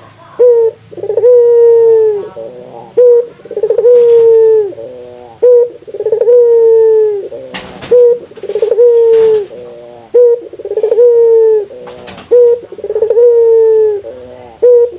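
A domestic ringneck dove (burung puter) calling over and over. Each phrase is a short clipped note followed by a long drawn coo that falls in pitch at the end, repeated about every two and a half seconds.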